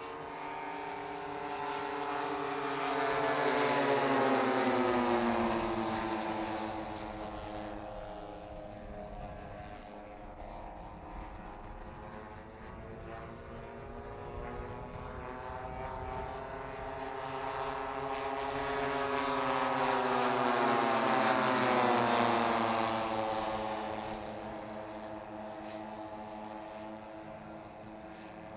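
Propeller engines of a formation of several large-scale radio-control WW2 fighter models flying past twice. The overlapping engine notes swell to their loudest about four seconds in and again about twenty seconds in, and their pitch falls each time the formation passes.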